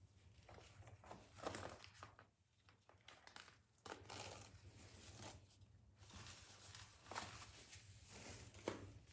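Faint rustling, crinkling and tearing of packaging as a potted plant is unwrapped by hand, in irregular short bursts over a low steady hum.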